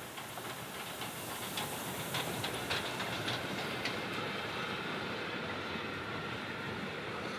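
Steam-hauled train of old Prussian branch-line coaches rolling past at close range, the wheels clicking over rail joints in a cluster about two to four seconds in, then a steady rolling rumble as the wooden carriages go by.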